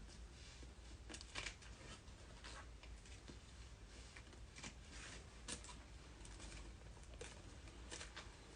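Faint, scattered rustles and light clicks of trading cards being handled, a soft tap every second or so over a low room hum.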